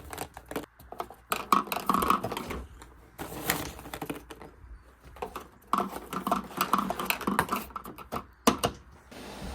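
Many balls rolling and clattering through a handmade marble run, a quick rattle of small clicks and knocks that comes in busy clusters, with one sharp loud click near the end.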